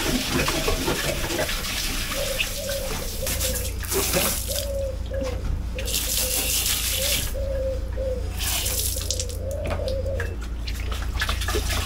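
Water running from a tap in spells, starting and stopping several times, over a steady low hum.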